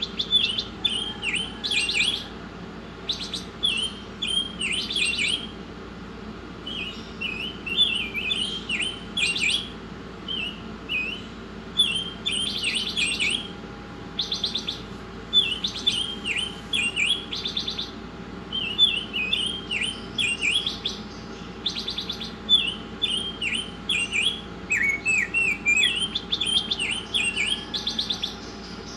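A caged songbird singing in short bursts of rapid chirping notes, repeated every second or two with brief pauses; some phrases end in a buzzy trill. It is played as masteran, a recorded song used to teach other songbirds.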